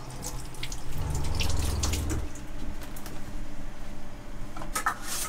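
Water running from a tap into a stainless steel galley sink and splashing, with small knocks and clicks. A low hum joins in about a second in and stops about a second later.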